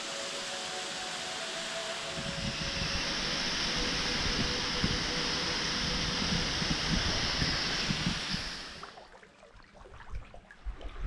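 Steady rushing hiss of a waterfall spilling down a sea cliff onto the rocky shore. It stops suddenly near the end.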